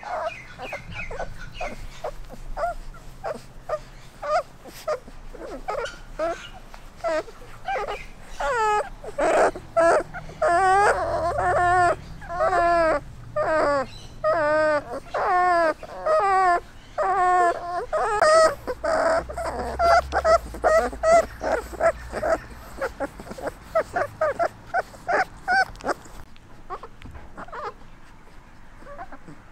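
Three-week-old German wirehaired pointer puppies whimpering and squealing in a long string of short, high calls, about two a second, thickest through the middle and thinning out near the end.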